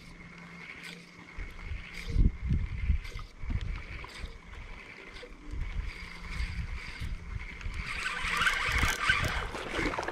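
Water lapping against a small boat's hull while a spinning reel is cranked, with a regular ticking of about one to two a second as a wobbler is retrieved. Near the end comes a louder stretch of splashing as a fish takes the lure right beside the boat.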